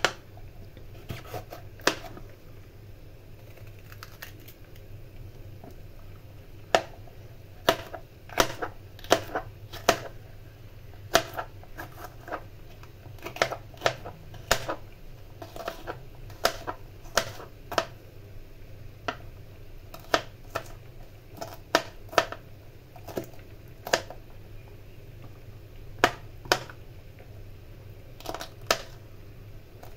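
Kitchen knife slicing a green bell pepper on a plastic cutting board: sharp, irregular knocks of the blade hitting the board, roughly one or two a second with short pauses, over a faint steady low hum.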